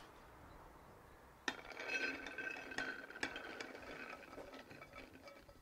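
Dried white beans poured from a plate into a slow cooker's pot: a rattling patter of many small hard clicks with a slight ring. It starts sharply about a second and a half in and thins out toward the end.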